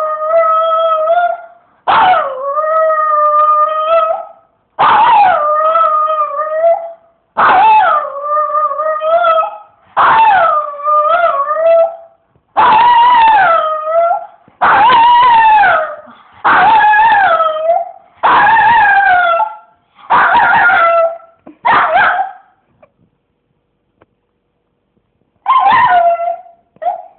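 Dog howling: a string of long, wavering howls about two seconds each with short breaks between them. It falls silent for a few seconds near the end, then gives two short howls.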